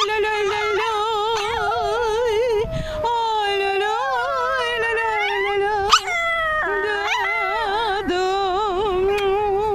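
A small chihuahua howling in long, wavering notes, with a woman howling along with it as she leads it to 'sing'. A sharp click about six seconds in.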